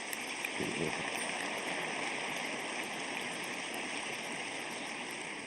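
Large hall audience applauding steadily.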